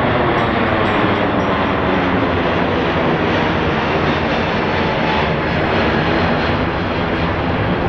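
Jet airliner engines running loud and steady, a dense rushing noise that eases a little near the end.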